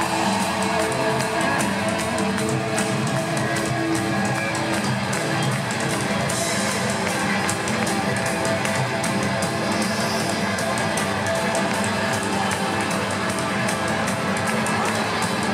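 Live rock band playing: electric guitar strumming over drums and keyboard, heard from among the audience at an arena concert.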